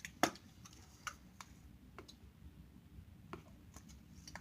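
A few separate sharp clicks and taps at irregular intervals, the loudest a moment after the start, from small objects being handled.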